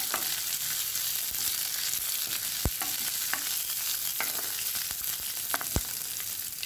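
Chopped capsicum, peanuts and curry leaves sizzling in hot oil in a nonstick pan, stirred with a plastic spatula. A steady hiss with a few sharp clicks, about three seconds in and again near the end.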